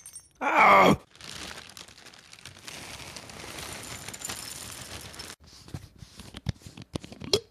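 A man groans once, his voice falling in pitch, then a steady hiss-like noise runs for about four seconds and stops, followed by a few sharp clicks.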